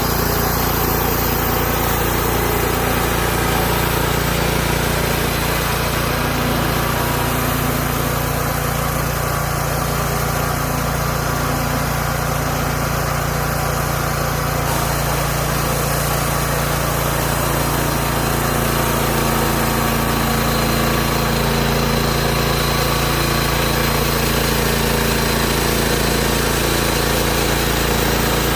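Hud-son Homesteader 30 bandsaw sawmill's engine running steadily at an even level through a long stretch of milling.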